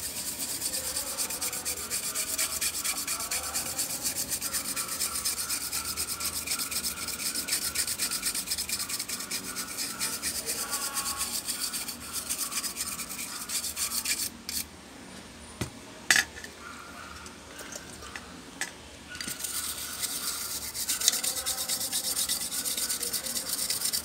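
Toothbrush bristles scrubbing a graphics card's circuit board in quick back-and-forth strokes, a dry scratchy brushing. It stops for a few seconds past the middle, with one tap, then starts again. The board is being cleaned ahead of a GPU reflow.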